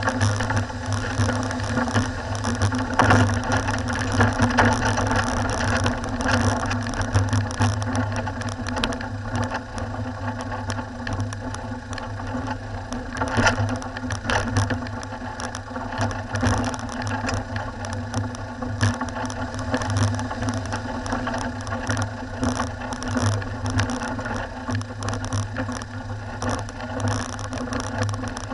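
Four-wheel-drive vehicle's engine running steadily at low speed, with frequent knocks and rattles as it drives over a rough, rocky gravel track.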